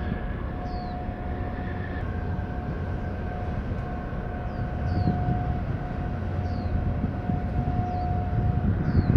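Steady low rumble of a large container ship passing close by, with a faint held tone that comes and goes and short high falling chirps every second or two.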